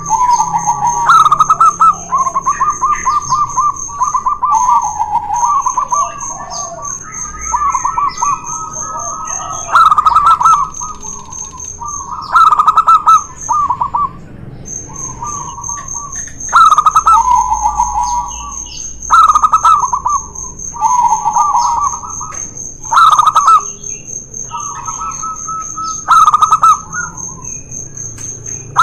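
Zebra doves (perkutut) cooing in a duel: repeated rapid trilled coo phrases every two to three seconds, two birds answering and overlapping at slightly different pitches. A steady, pulsing high-pitched tone runs underneath.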